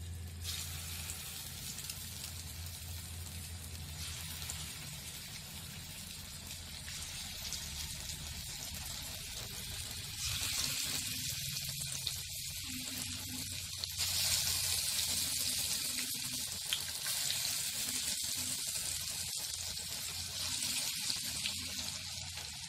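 Dal vada (lentil fritters) frying in hot oil in a kadai: a steady sizzling hiss that grows louder about ten seconds in and again a few seconds later.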